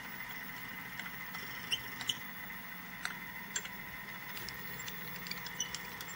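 Milling machine spindle running as an end mill skims the face of an aluminium two-stroke cylinder head. A steady high whine is broken by scattered small ticks from the cut and the chips.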